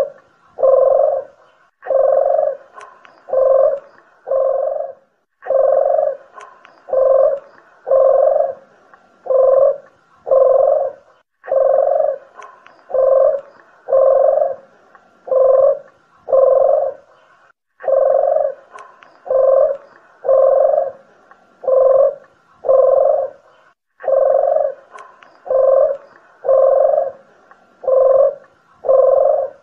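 Doves of the kinds sold in Java as puter geni and deruk jawa cooing in a steady series of short, low, mid-pitched coos, roughly one to two a second, in runs broken by brief pauses every few seconds. It is a lure-call recording for attracting wild doves.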